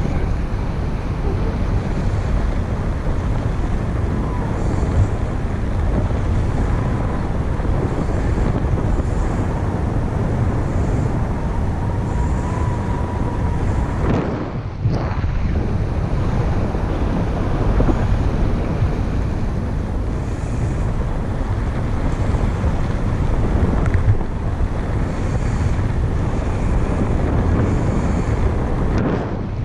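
Airflow rushing and buffeting over the microphone of a camera on a paraglider pilot in flight, a heavy, steady wind rush that eases briefly about halfway through.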